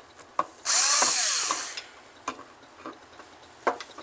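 Power drill run in a single burst of about a second, its motor pitch sliding as it spins a screw out of a hard drive's casing. Light clicks and taps of the tool and parts follow.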